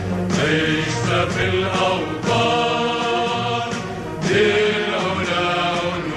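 Music of voices chanting together in long held phrases, a new phrase beginning about every two seconds.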